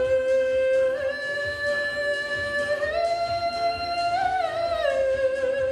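A male singer holds one long high note on a vowel, stepping up in pitch twice and then sliding back down with a wavering finish near the end, over a backing track with a steady beat.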